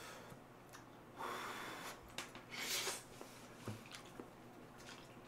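Man eating Chapagetti instant black-bean noodles: quiet chewing and slurping, with two short breathy bursts, one a little over a second in and one just before the middle.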